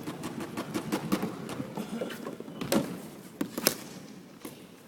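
Scattered knocks and thuds from a ball game on an indoor court: ball bounces and players' footfalls, with a few sharper impacts about halfway through.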